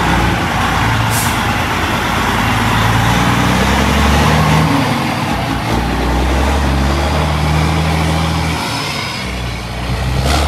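Detroit Diesel Series 60 12.7-litre inline-six diesel in a Freightliner tractor, pulling away and accelerating, its engine note rising and dropping a few times as it shifts. The note falls away shortly before the end as the truck drives off.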